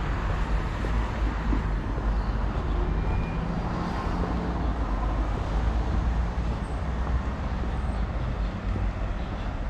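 Steady road traffic noise with a low rumble, cars running along the street.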